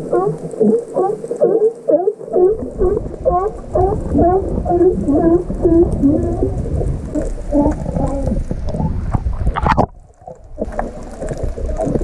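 California sea lions calling underwater: a dense chorus of many short, wavering barks and bleats overlapping one another, over a low rumble of water. Near the end the sound briefly drops away, then the calls start again.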